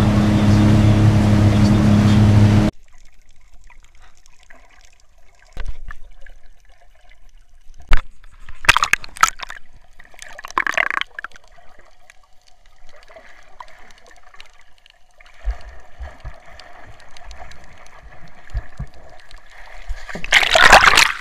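Speedboat running fast over its churning wake, cut off abruptly after about two and a half seconds. Then muffled underwater sound: faint gurgling and bubbling with scattered clicks, a few sharp splashes around eight to eleven seconds in, and a loud rush of water near the end.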